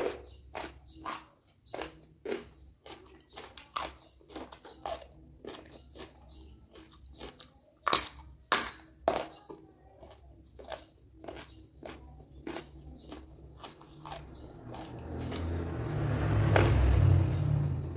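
Crunchy biting and chewing of raw vegetables and young jengkol: a string of quick crisp crunches, with a few sharp bites standing out about eight and nine seconds in. Near the end a low rumbling noise swells up and fades.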